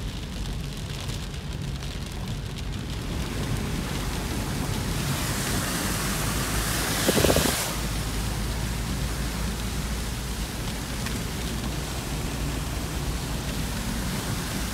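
Steady rushing noise of water, swelling louder for about two seconds near the middle.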